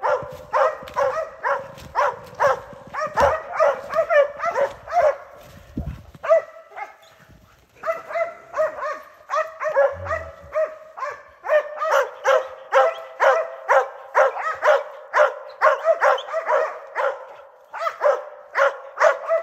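Hunting laika barking steadily at a moose it is holding at bay, about two to three barks a second, with a short pause about six and a half seconds in.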